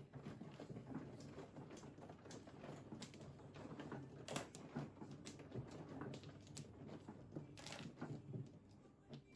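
Mahjong tiles clicking and clacking on the table as they are drawn, discarded and shuffled into place, in irregular sharp knocks over a steady low hum.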